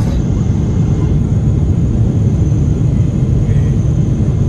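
Jet airliner cabin noise during the climb after takeoff: a steady low roar of the turbofan engines and rushing air, heard inside the cabin from a window seat.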